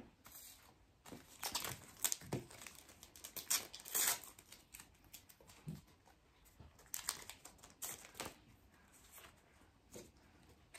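Foil trading-card packets crinkling and rustling in irregular bursts as they are handled and one is torn open, with the cards slid out.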